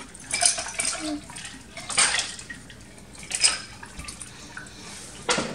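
Margarita poured from a stainless steel cocktail shaker into glasses: liquid splashing in a few short pours, with light clinks of metal and glass.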